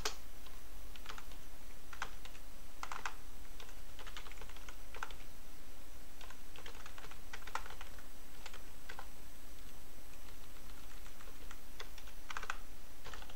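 Typing on a computer keyboard: irregular keystrokes in short bursts and pauses, over a steady low hum.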